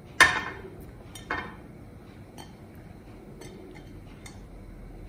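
A glass bowl clinking against the rim of a cooking pot twice, the first knock the loudest, then a few faint ticks, as cooked rice is tipped and pushed out of the bowl into the pot.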